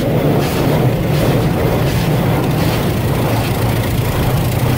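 Automatic car wash running around the vehicle, heard from inside the cabin: a loud, steady rushing noise over a low hum.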